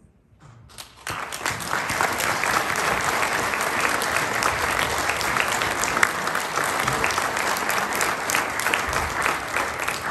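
Audience applauding at the end of a wind band piece: clapping breaks out about a second in and goes on steadily.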